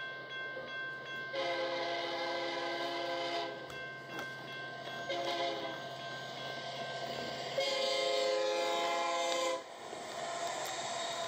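Locomotive air horn sounding a chord in three blasts: long, short, then long, the closing part of a grade-crossing signal. A steady low hum runs under it and stops just as the last long blast begins.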